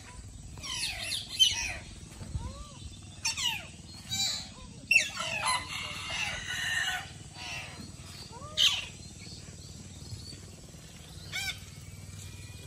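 Red-breasted parakeets calling in an aviary: bursts of shrill, sweeping notes, with a longer dense run of calls about five to seven seconds in.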